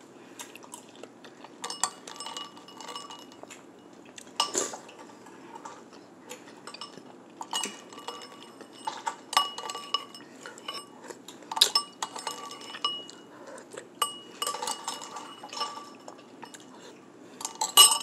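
Metal spoon clinking and scraping against a ceramic bowl as berries are scooped out of coconut water. The clinks come in scattered clusters with short ringing, and the loudest comes near the end.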